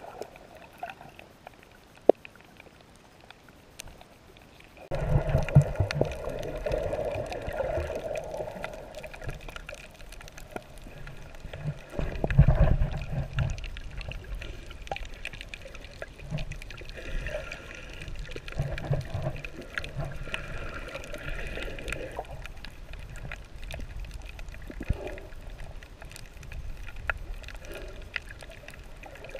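Muffled water sloshing and gurgling around an underwater camera, with low rumbles of moving seawater and scattered small clicks. Fairly quiet at first, then suddenly louder about five seconds in, loudest around twelve seconds.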